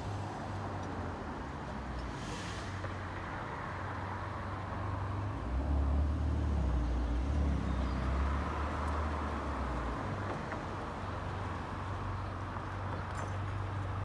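Road traffic running past steadily, with one vehicle going by closer and louder from about five to ten seconds in.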